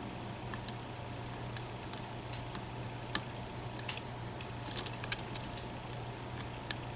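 Scattered light clicks of a hook pick working the pins and sliders inside an EVVA ICS lock, with a short cluster of clicks about five seconds in, over a steady low hum. The picker is probing the fifth slider, which will not set.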